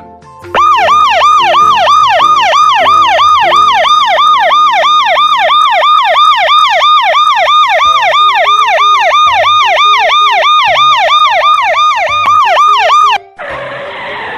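Fast electronic yelp siren, its pitch sweeping up and down about three times a second, starting about half a second in and cutting off suddenly near the end. A short burst of noise follows it.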